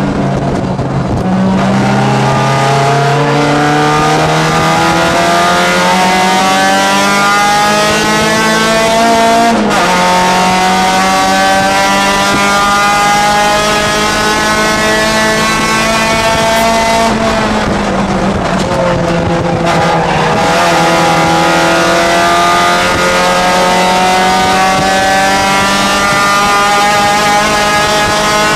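A Honda four-cylinder race car engine, heard from inside the cabin, running hard at high revs with wind and road noise under it. The engine note climbs steadily and drops suddenly at a gear change about ten seconds in. It falls away as the car slows at about seventeen seconds, then climbs again as the car accelerates.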